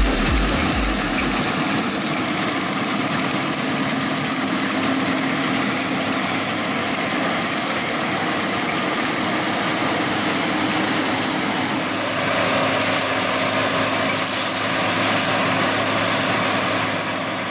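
New Holland CX6090 combine harvester running as it cuts rapeseed: a steady engine drone and machinery hum under a broad hiss. It grows a little louder about twelve seconds in and fades out near the end.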